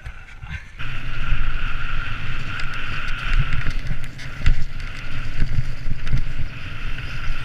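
Mountain bike riding fast down a gravel trail: a steady rumble of tyres and wind on the camera microphone, with frequent knocks as the bike hits bumps and a steady hiss over it. It starts quieter and picks up about a second in.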